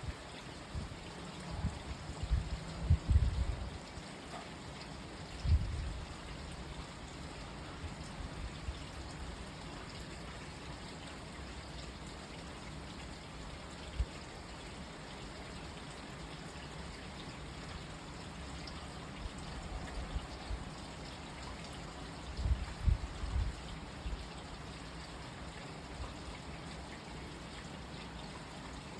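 Steady hiss of rain falling, with trickling water. A few low rumbling bumps near the start and again about two-thirds of the way through.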